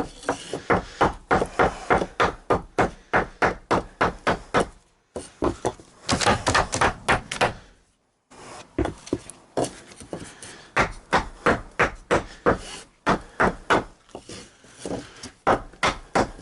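Rapid, steady hammer blows on particle board flooring, about three or four strikes a second, with two short breaks.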